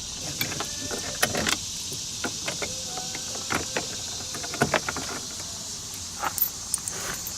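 Scattered clicks and light knocks of a socket wrench and hands working the two 8mm bolts inside a truck door, over a steady faint hiss.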